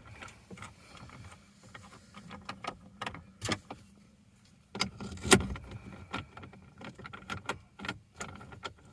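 Metal parts of a phone mount being handled and fitted together: scattered small clicks and clinks, with sharper knocks about three and a half seconds in and again just after five seconds.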